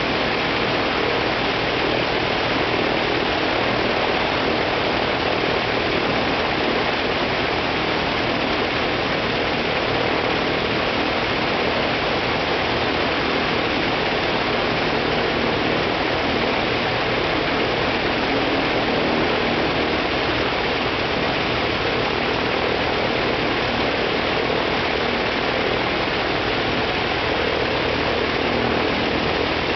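Ilyushin Il-14T's left Shvetsov ASh-82T 14-cylinder twin-row radial engine running steadily on the ground, its propeller turning.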